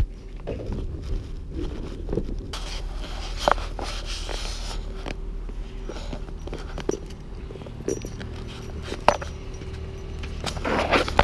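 Footsteps and handling noise from a handheld camera carried outdoors, with scattered clicks and knocks over a steady low rumble.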